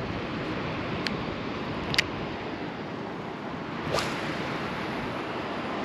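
Strong wind buffeting the microphone, a steady rushing noise, with a few brief sharp ticks or swishes about one, two and four seconds in.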